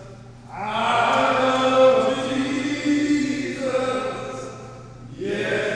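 A group of men singing or chanting together, in long held phrases: one phrase from about half a second in that fades near four and a half seconds, and a new one starting just after five seconds.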